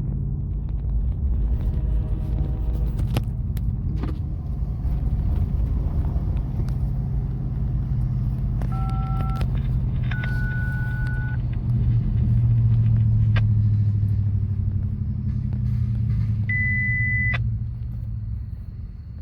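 Diesel locomotive of a Wheeling & Lake Erie freight train running with a steady low rumble, growing louder for a few seconds after the middle, then easing off near the end. Short steady high tones sound three times, the last one highest.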